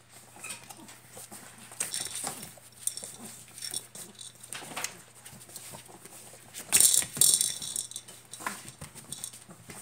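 Golden retriever puppies nursing from their mother: irregular suckling and rustling of fur as they squirm against her, with louder scuffling bursts near two and five seconds in and the loudest about seven seconds in.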